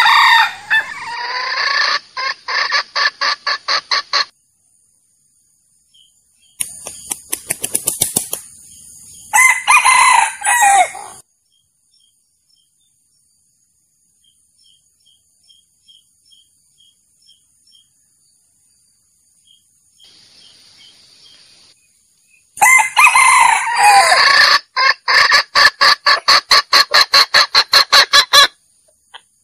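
Male junglefowl crowing three times, with runs of sharp clucks at about four a second after the first and last crows and a shorter run before the second. It is a lure call used to draw a wild rooster into a trap.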